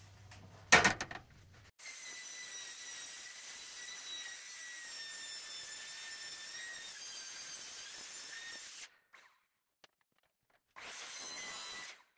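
Circular saw with a wood blade mounted backwards cutting corrugated metal roofing: a steady high-pitched screech for about seven seconds, then a second, shorter cut near the end. A sharp knock a little under a second in.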